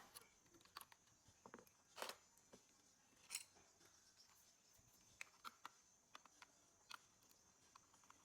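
Faint, scattered clicks and taps of the plastic casing and small parts of a Casio TP-50 cassette recorder being handled while it is taken apart, the loudest about two and three and a half seconds in.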